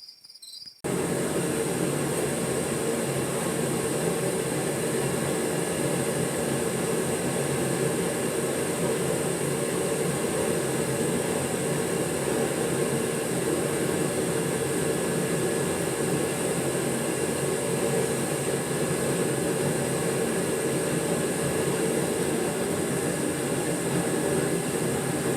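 Backyard metal-casting furnace running: a steady, even rushing noise from the furnace's forced-air flame, starting abruptly about a second in and cutting off suddenly at the end.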